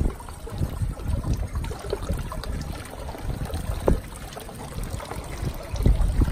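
Fresh hose water flushing through a Yamaha outboard with the engine off, trickling and splashing out from under the cowling into the water below.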